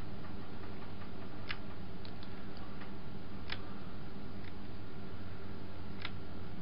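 Quiet room tone in a pause of the narration: a steady low hum with a handful of faint, scattered clicks.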